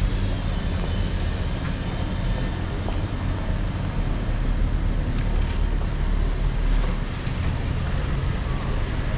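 Steady low rumble of road traffic on a city street, with a few faint clicks mixed in.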